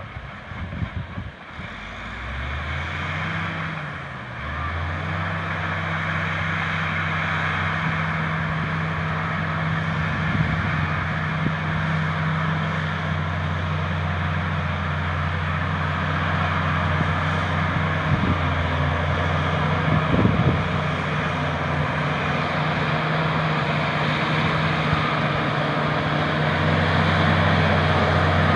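LiuGong bulldozer's diesel engine revving up about two seconds in, dipping briefly, then climbing again and running steadily at high revs, with a broad rushing noise over it.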